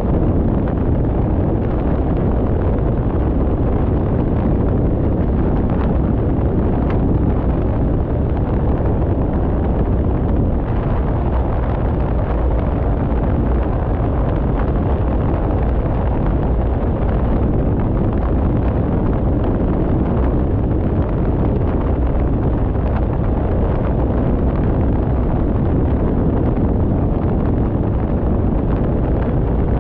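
Steady low rumble of wind buffeting the microphone, mixed with the road noise of a car driving at speed.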